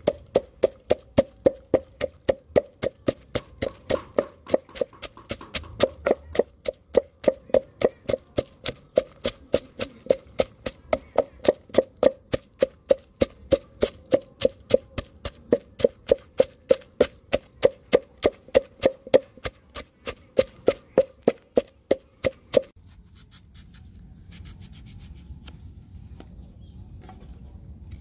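Pestle pounding chilies, garlic and salt in a mortar: a steady run of ringing knocks, about three strokes a second. The pounding stops suddenly about 23 seconds in, leaving only faint rustling.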